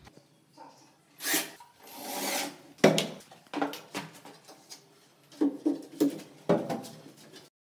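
A wooden cabinet door being handled and fitted against a wall cabinet: a brief scrape and a longer rubbing slide, then one sharp knock of wood on wood just before three seconds in, the loudest sound, followed by a string of lighter knocks and taps.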